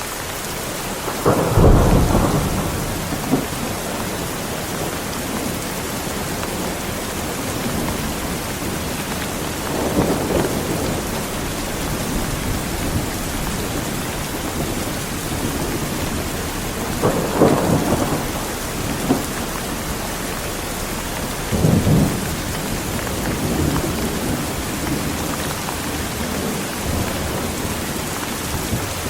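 Heavy rain falling steadily, with thunder rumbling four or five times; the loudest peal comes about two seconds in.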